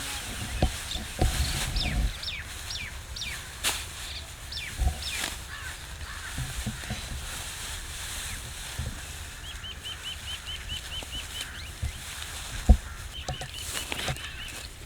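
Birds calling outdoors: a string of short, falling whistles, then two quick runs of rapidly repeated high notes. Low rustling and thuds sit underneath, with one sharp knock about two-thirds of the way through.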